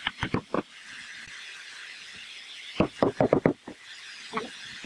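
Wooden knocks as a glued pine rail's tenon is seated into the mortise of a round wooden chair leg. There are four quick knocks at the start, a faster run of about seven a little before three seconds in, and a single knock near the end, over a steady background hiss.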